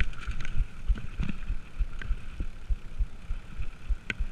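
Mountain bike riding fast down a rough dirt trail: a run of irregular low thuds and rattles as the wheels and frame bounce over bumps.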